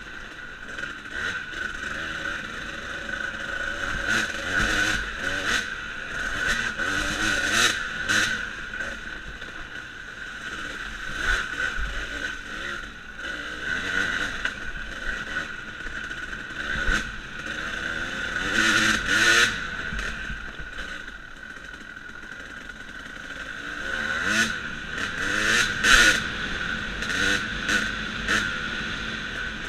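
Dirt bike engine running on a trail ride, its pitch rising and falling with the throttle, with louder bursts of revving about 19 and 26 seconds in.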